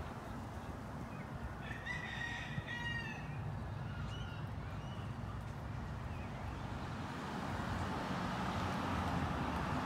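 A rooster crows once about two seconds in, a call lasting around a second and a half, over a steady low background rumble that grows a little louder near the end.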